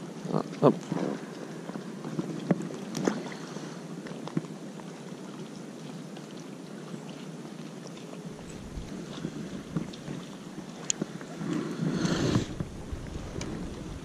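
Water lapping and splashing around a float tube, with wind gusting on the microphone and scattered small knocks and clicks; a louder rush of wind and water about twelve seconds in.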